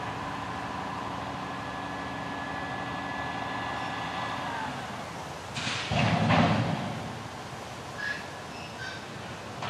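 Front-loader garbage truck's engine and hydraulic arms running with a steady whine as they lower an emptied steel dumpster, the whine falling off about four and a half seconds in. About six seconds in comes a loud clatter of metal bangs as the dumpster is set down, followed by a few light clinks.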